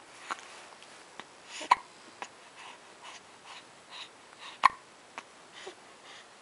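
A newborn baby hiccupping: several short, sharp hiccups at uneven intervals, the loudest about four and a half seconds in, with soft breathing between.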